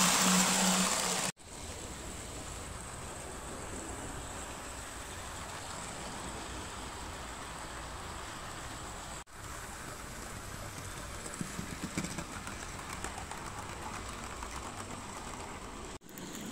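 A Hornby model of the Flying Scotsman and its coaches running along model railway track: a steady whir and rattle of small wheels on the rails. It is louder, with a steady hum, for the first second or so, and the sound breaks off sharply for an instant three times.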